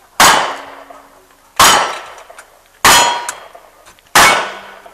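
Four single-action revolver shots about a second and a half apart, each followed by a short metallic ring, typical of lead hitting steel targets.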